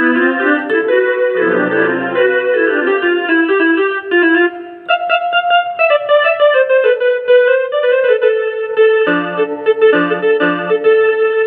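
Rockster RS41IN electronic keyboard playing a melody in one of its built-in tones, with a brief gap about five seconds in before the notes carry on.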